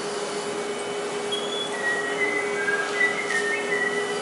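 Someone whistling a string of short, high notes that step up and down in pitch. Under it is a steady mechanical hum with a constant drone.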